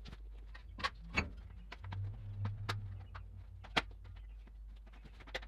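Gloved hands prying and tugging at the stuck snap-on lid of a white plastic five-gallon paint bucket: scattered sharp clicks and knocks of the plastic rim, the loudest about a second in and just before four seconds in, with a low hum in the middle. The lid does not come off.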